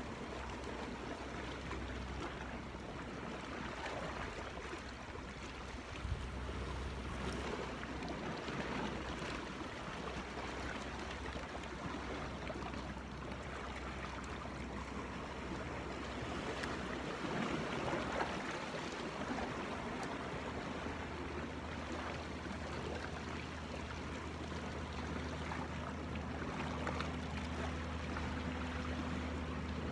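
Sea water washing and lapping against the rocks of a jetty, a steady wash.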